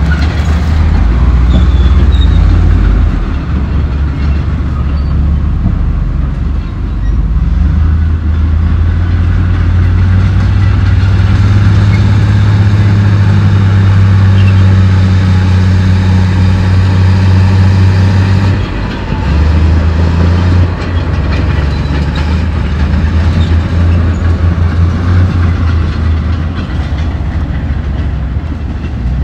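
Diesel engine of a crawler bulldozer working under load, with steady clanking and rattling from its steel tracks. The engine note builds and holds strong for several seconds, then eases off suddenly about two-thirds of the way through.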